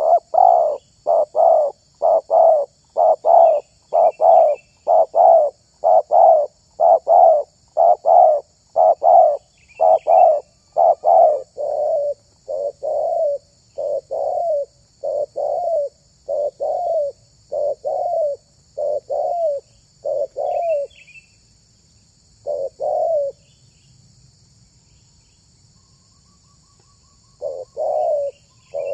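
Spotted dove cooing over and over: a quick run of coos, about two a second, that slows to about one a second after ten seconds, breaks off for a few seconds, then resumes with a few more near the end. A steady high insect hum and a few faint chirps of other birds behind.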